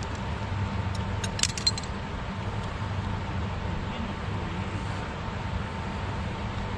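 Steady low rush of a river's flowing water, with a few light sharp clicks a little over a second in.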